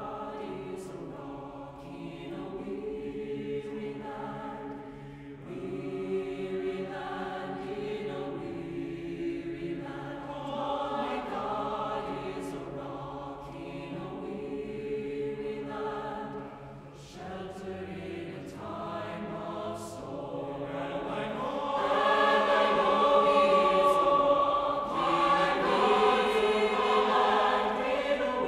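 Mixed choir singing a spiritual in sustained chords, growing louder about three-quarters of the way through.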